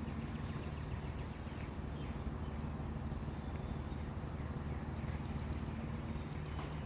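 Steady low hum of room noise, with a faint click near the end.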